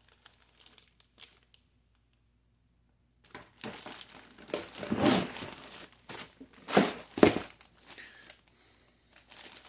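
Plastic packaging bag crinkling and cardboard box scraping as a bagged forearm trainer is pulled out of its box. The rustling starts about three seconds in, comes in irregular handfuls with a few louder crackles, and is nearly quiet before that.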